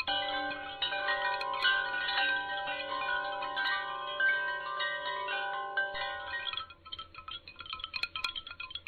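Chimes ringing: many overlapping bell-like notes, each held for a second or two, that die away about seven seconds in, leaving light tinkling.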